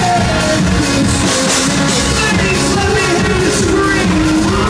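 Live pop-rock band playing loud: electric guitars and keyboard under a male lead vocal, with steady cymbal strikes keeping the beat.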